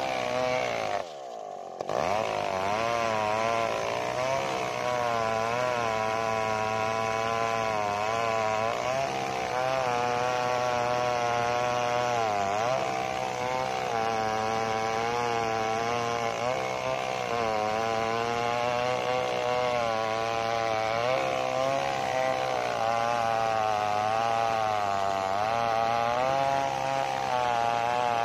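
Two-stroke chainsaw held at high revs while ripping lengthwise along a sengon log, its pitch wavering as the load changes. About a second in the sound drops away briefly, and near the middle the revs sag for a moment before picking up again.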